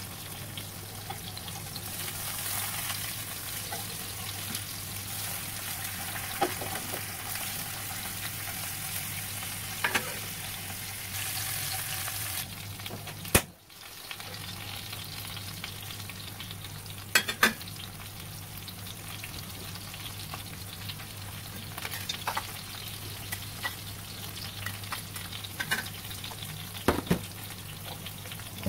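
Tofu frying in hot oil in a pan, a steady sizzle, with a few sharp metallic clinks of a steel spatula against a stainless steel wok and a low steady hum underneath.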